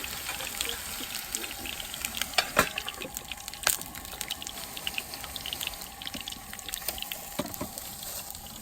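Gyoza frying in an oiled pan over a campfire: a steady sizzle with scattered crackles and a few sharp pops.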